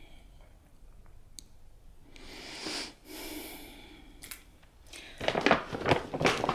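Handling noise of a fleece baby sleeper on a plastic hanger being picked up close to the microphone: two soft breaths partway through, then a dense run of rustles and small clicks that grows louder near the end.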